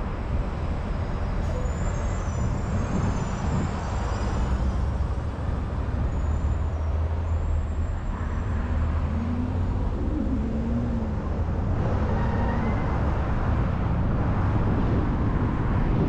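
Steady road and traffic noise from a car driving on city streets: a continuous low rumble of engine and tyres with passing-traffic hiss.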